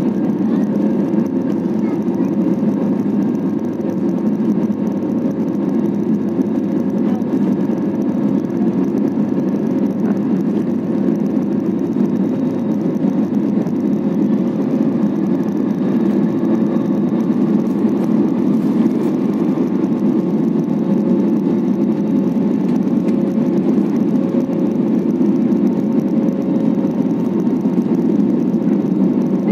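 Steady cabin noise of an Airbus A320-family jet airliner climbing after takeoff, heard from a seat over the wing: a low, even rush of engine and airflow noise with a faint steady hum on top.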